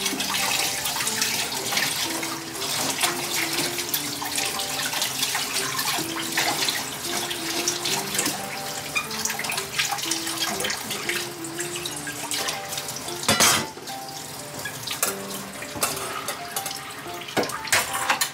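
Water running from a kitchen tap into a sink, with a few small clatters and one sharper knock about 13 seconds in.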